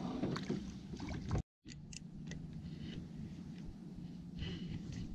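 Small boat's outboard motor running at trolling speed: a steady low hum, with scattered light clicks. The sound drops out completely for a moment about a second and a half in.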